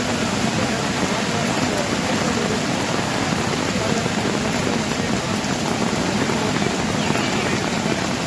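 Steady rush of a monsoon-swollen river in flood, with fast brown floodwater pouring past and over a line of wooden fence posts.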